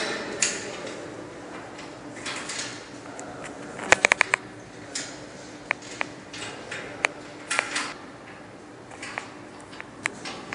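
Scattered metallic clicks and knocks from stainless-steel conveyor parts being handled and fitted to a packaging machine, with a quick rattle of several clicks about four seconds in.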